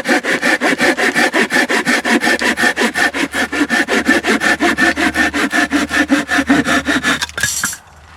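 Hand saw cutting through a log in rapid, even back-and-forth strokes, about six a second. The sawing stops a little before the end, followed by a short rustling burst.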